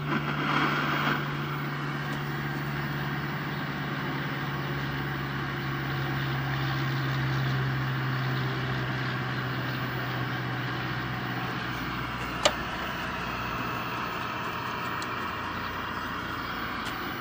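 Steady low hum with static over it from a 1976 RCA XL100 colour TV's audio, the set's sound fault left unchanged with a 4700 µF capacitor jumped in. One sharp click about twelve seconds in.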